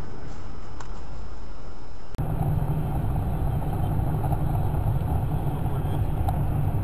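Steady road and engine noise of a car driving, heard from inside through a dashcam. About two seconds in it cuts abruptly to a heavier, deeper rumble of a car on a wet highway.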